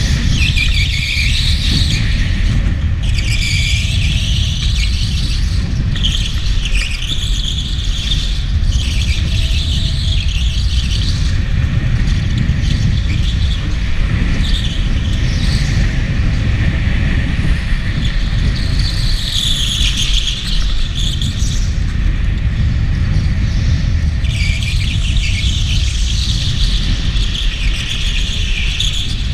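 Electric go-kart's tyres squealing on a polished concrete indoor track in repeated spells of a few seconds each as it corners, over a steady low rumble of the kart running.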